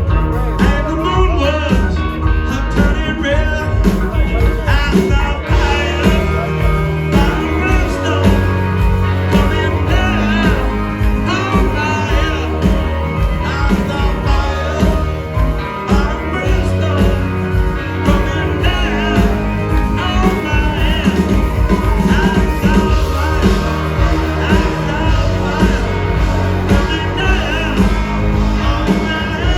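Live rock and roll band playing a driving, steady-beat song, with a singer's voice over guitar, bass and drums.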